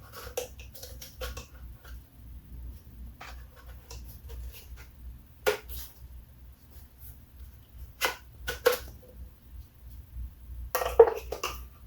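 Hard plastic parts of a Dewalt DCE100 compact blower being handled and fitted together: scattered clicks and knocks, with a sharp one about halfway through, two more a little later and another near the end. A faint low rumble runs underneath.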